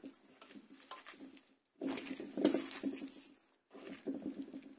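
A hand squishing and mixing a soft mashed potato filling with chopped garlic greens in a pan, in irregular soft bursts.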